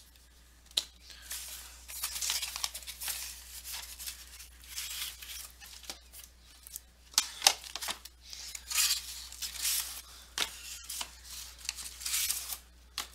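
Cardboard shipping case being torn open and handled, with sealed card boxes scraping against the cardboard as they are slid out: irregular tearing, rustling and scraping with a few sharp clicks.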